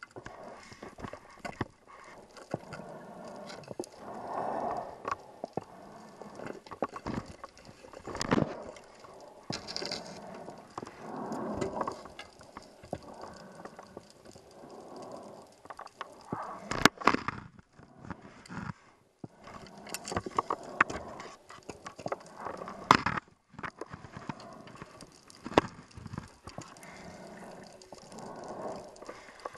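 Scuba diver's breathing heard underwater: slow, repeating swells of regulator hiss and exhaled bubbles gurgling, broken by several sharp clicks and knocks from the diver's gear.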